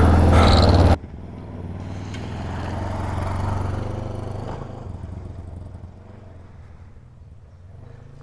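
Motorcycle engine running loud and close for about the first second, then cut off suddenly. After that, a motorcycle riding past, its engine growing louder for a couple of seconds and then fading as it moves away.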